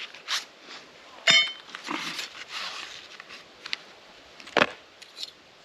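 Metal parts of a flat-pack rocket stove clinking and scraping as they are fitted together. There is a sharp clink that rings briefly about a second in, and another sharp knock near the end.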